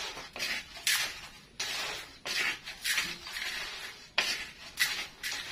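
Spatula scraping and stirring sand in a wok: repeated hissy rasping strokes, a little under two a second. The sand is being heated for sand-frying krupuk and is not yet hot enough to make them puff.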